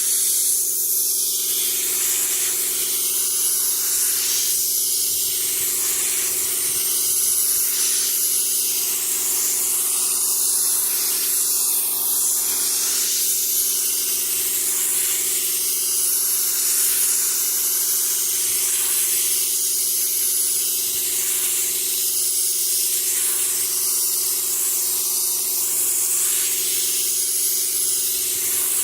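Paint spray gun hissing steadily as it sprays, swelling and easing every couple of seconds, over a steady low hum.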